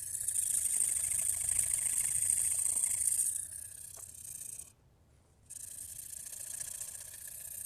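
Carbon-steel knife edge being ground on a Shapton Glass 500 whetstone with slurry on it, a steady gritty scraping hiss, edge-on to the stone to grind out chips. It is loud for about three seconds, then softer, stops briefly about five seconds in, and picks up again.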